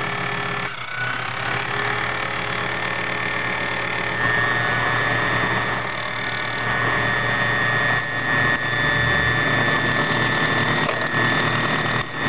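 Foley Belsaw Model 200 key-cutting machine running steadily, its cutter milling the cuts into a Kwikset-type key blank with a high whine. It grows louder about four seconds in and dips briefly near the end.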